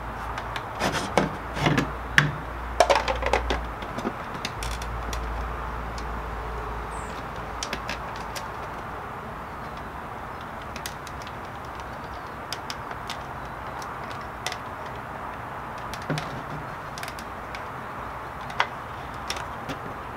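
Plastic hatch cover of an RC speedboat being handled and fitted back onto the hull: a flurry of clicks and knocks in the first few seconds, then scattered light clicks and taps.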